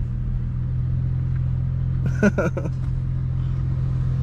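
BMW M340i's turbocharged 3.0-litre inline-six idling steadily in drive while the car waits at a stop, heard from inside the cabin. A brief voice cuts in a little over two seconds in.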